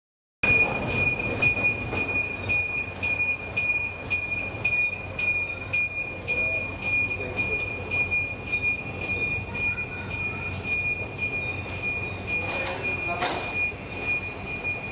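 Boeing 747-400 under tow on the airport ramp: a steady high-pitched whine over a low rumble. A brief squeal rises and falls near the end.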